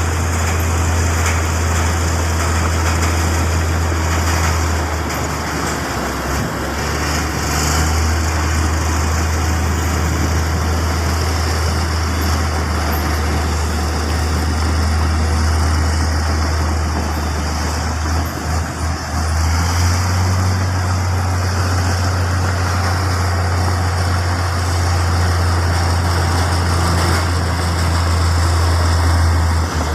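Heavy construction machinery running with a steady low diesel drone. Its pitch steps up slightly about two-thirds of the way through.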